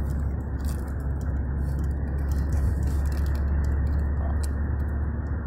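Steady low rumble inside a car's cabin, the road and engine noise of a vehicle under way, with a few faint light rattles.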